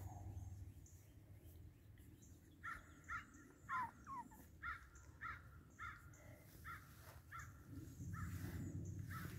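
An animal calling in a regular series of about a dozen short calls, roughly two a second, starting about two and a half seconds in and stopping near the end.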